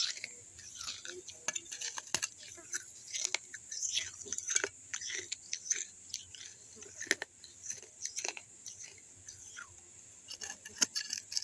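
Chewing and crunching pieces of a mitti kulhad, an unglazed fired-clay cup, with irregular sharp crackles of the clay breaking between the teeth.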